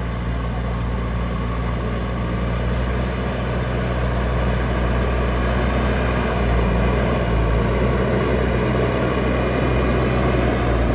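An engine running steadily, slowly growing louder.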